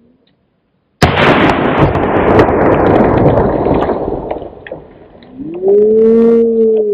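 Liquid-nitrogen explosion in an ice-filled bucket, heard slowed down: a sudden loud blast about a second in that fades over about three seconds. It is followed near the end by a loud, drawn-out voice-like cry that rises and then falls in pitch.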